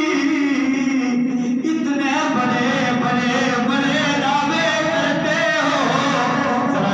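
Vocal music: a man's voice chanting a melody over a steady low drone.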